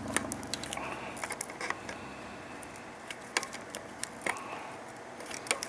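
Wire snips clipping the excess leads of freshly soldered capacitors on a monitor power board: scattered sharp little clicks, a few of them louder.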